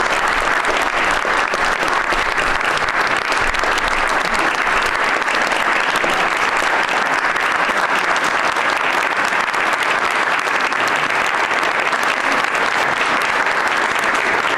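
An audience applauding steadily, a dense, even clapping from a room full of people.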